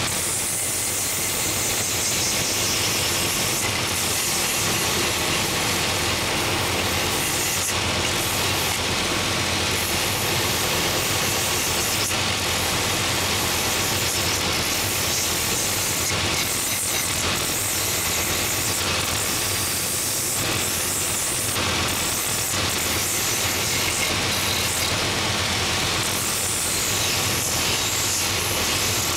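Purpose-built last-making belt sanding machine running, its coarse 24-grit belt grinding wood off a wooden shoe last held against it. The steady grinding hiss drops back briefly every few seconds as the last is lifted and repositioned on the belt.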